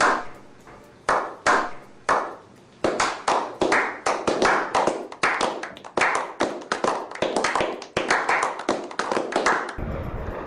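Slow clap from a small group of men: single hand claps about half a second to a second apart, quickening into steady applause that stops suddenly near the end.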